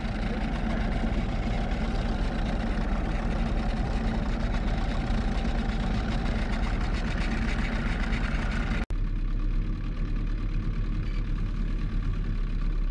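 Boat's outboard motor running steadily at trolling speed. A brief dropout comes about nine seconds in, after which the sound is duller and heavier in the bass.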